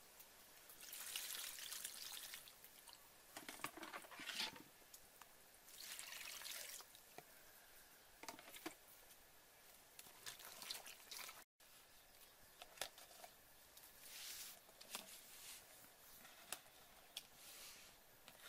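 Faint water splashing and sloshing in a metal bowl as vegetables are washed by hand, in short bouts of a second or so, with small knocks and clicks between.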